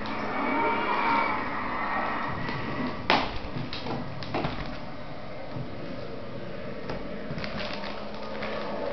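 Handling noise at a workbench: a sharp click about three seconds in, then a few lighter clicks and taps as the wrapped CD package and tools are picked up and moved, over a steady background hiss.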